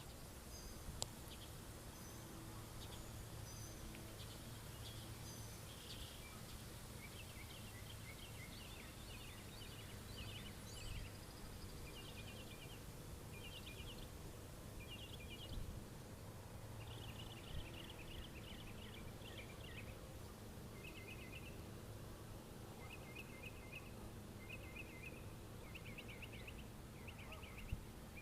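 Quiet outdoor ambience: small birds chirping in quick repeated bursts over a steady low rumble, with a couple of brief clicks.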